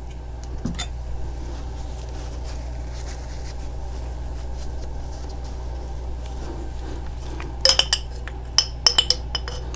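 A metal spoon clinking against glass several times near the end while a tablespoon of honey is spooned out, with faint handling ticks before it. A steady low hum runs underneath.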